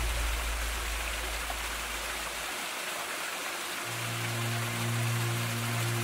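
Steady rush of a small waterfall splashing over rock into a shallow pool. Background music with a low bass line fades out about two seconds in and comes back about four seconds in.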